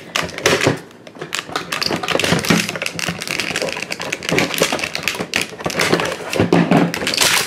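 Scissors snipping and clear plastic packaging crinkling as a small action figure is cut free, a run of irregular clicks and crackles.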